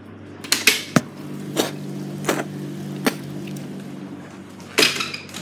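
A phone being handled and moved around: a scatter of sharp knocks and thumps, about seven in all, with the loudest near the end, over a low steady hum.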